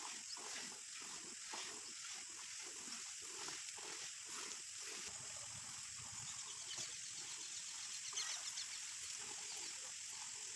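A cow being milked by hand: steady rhythmic squirts of milk into a bucket already part-full of milk, about two to three squirts a second, a little less regular in the second half.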